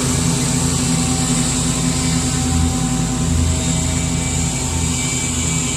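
Petrol lawn mower engine running steadily, a constant drone with a hiss from the cutting.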